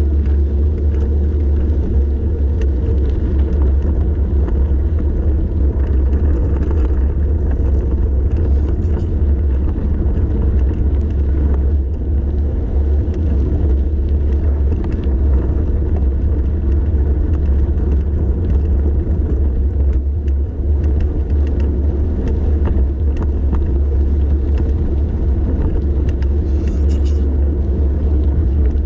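Steady deep wind rumble buffeting a camera's microphone on a bicycle descent, with scattered light ticks and rattles throughout.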